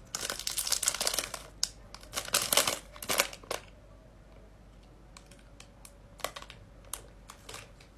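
A Twix bar's plastic wrapper crinkling as it is handled and unwrapped. There is a dense run of crackles for about three and a half seconds, then only a few scattered small crinkles.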